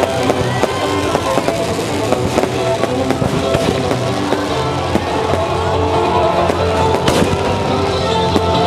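Fireworks bursting and crackling in quick succession over loud music with held notes, with one sharper bang about seven seconds in.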